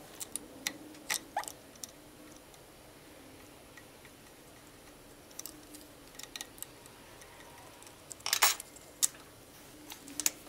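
Light metallic clicks and scrapes of a screwdriver prying the retaining clip off an electric motor's cooling-fan hub and the fan being worked off the shaft, with a louder clatter about eight seconds in as the screwdriver is set down on a wooden bench.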